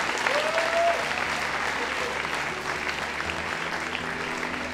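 Audience applauding, with a short rising-and-falling call heard through the clapping under a second in. Soft music comes in under the applause in the second half.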